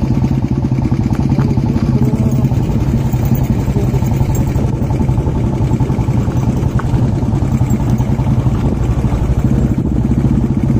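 Motorcycle engine running steadily at a low, even beat.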